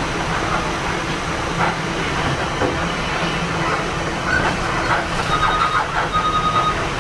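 Inside a running city bus: a steady engine and road rumble with rattling from the cabin. Two short high beeps sound about five and six seconds in.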